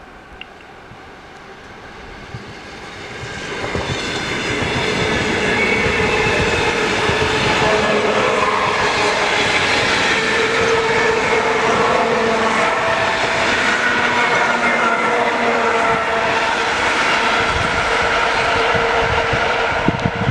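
2ES6 'Sinara' electric locomotive hauling a container train, moving slowly past. Its noise swells over the first few seconds into loud, steady running sound from the locomotive and its wheels on the rails. Several steady whining tones ride over the running sound.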